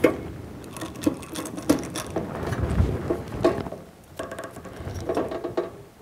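Hand pop-rivet gun being squeezed repeatedly on a pop rivet through a metal corner on a galvanized sheet-metal box: a run of irregular metallic clicks and creaks as the gun's jaws draw up the rivet's mandrel.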